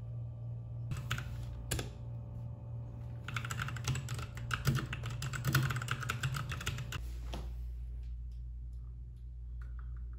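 Typing on a compact white backlit keyboard: a couple of separate keystrokes, then a run of fast typing that stops about seven seconds in.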